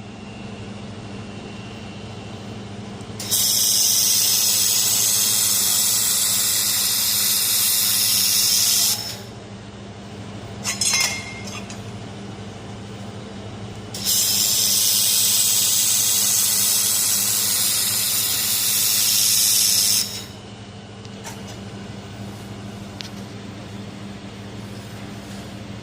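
1000 W handheld fiber laser welder running on stainless steel: two long, loud hissing weld passes of about six seconds each, with a short burst between them. A steady low hum runs underneath throughout.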